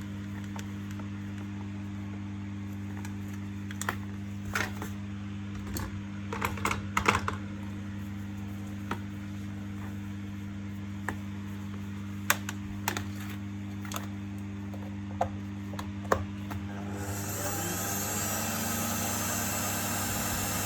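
A few scattered clicks and knocks of plastic parts being handled, then about seventeen seconds in an Electrolux ErgoSpace vacuum cleaner motor switches on, spins up and keeps running with a steady rushing hiss. This is the cleaner running again after its power cord was repaired.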